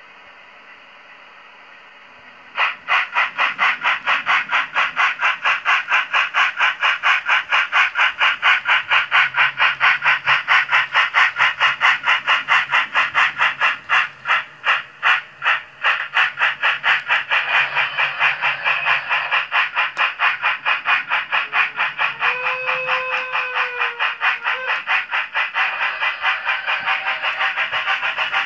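Sound decoder of a Liliput BR 05 H0 model steam locomotive playing steam-engine chuffing through its small speaker. The chuffing starts about two and a half seconds in and keeps an even, rapid beat. Near the end a whistle sounds for a few seconds over the chuffing.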